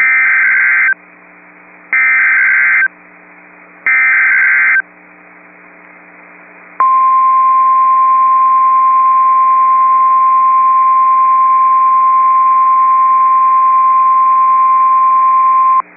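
Emergency Alert System tornado warning tones from a weather radio: three short bursts of SAME digital header data, each just under a second with about a second between them, then, after a pause of about two seconds, the weather radio's single steady 1050 Hz warning alarm tone held for about nine seconds.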